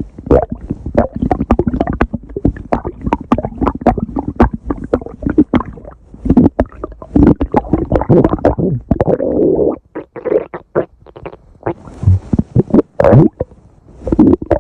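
Stomach growling: an irregular run of gurgles and rumbles studded with many quick pops and clicks, with a short lull about ten seconds in.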